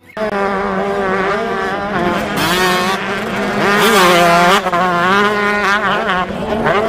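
Motocross dirt-bike engines revving hard, their pitch rising and falling repeatedly as the bikes accelerate and back off on the track.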